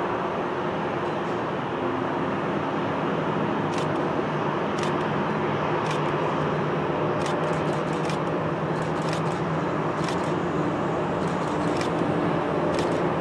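Four-engined Airbus A340-200 taxiing, its CFM56 jet engines running at idle with a steady rushing hum. A few short high-pitched ticks are scattered over it.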